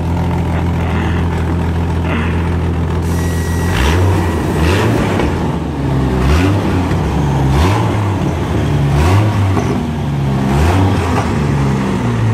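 A Jeep Wrangler's newly swapped-in six-cylinder engine running at a steady idle for about four seconds, then revved in short throttle blips roughly every second and a half.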